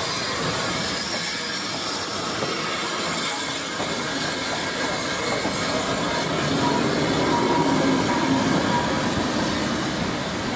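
Steam-hauled heritage train running on the line: a steady rush of running noise that grows louder in the second half, with a faint high squeal as it swells.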